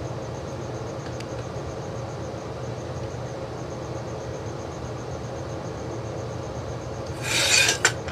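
Steady low workshop hum, with one loud, brief harsh scrape about seven seconds in.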